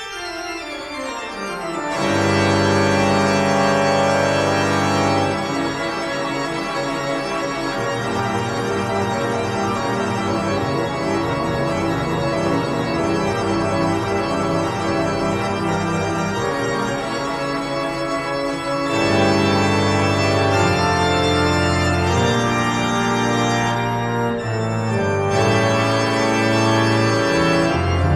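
Background music played on an organ: sustained chords that change every few seconds.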